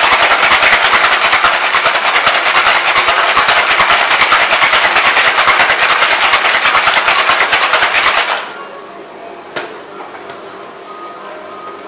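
Ice rattling hard in a metal cocktail shaker, a rapid, even rattle that stops abruptly about eight seconds in: the wet shake with ice for an egg-white sour, after the dry shake. A single sharp knock follows about a second later.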